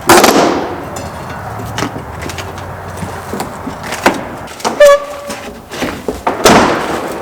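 Old wooden door frame and trim being pried and ripped out of the wall: a loud cracking crash at the start, a sharp hit with a short high squeal about five seconds in, and another loud crash near the end.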